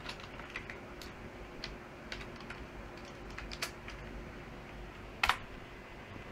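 Computer keyboard being typed on: irregular key clicks, a few to a second, with one much louder key strike about five seconds in.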